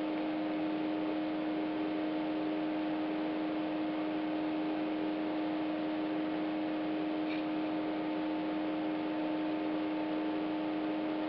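A steady electrical hum, one low tone with fainter overtones, over a constant hiss.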